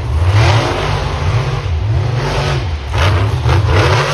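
Two full-size monster trucks racing side by side on a dirt track, their engines revving hard. The pitch rises and falls about once a second as the throttle is worked over the bumps and jumps.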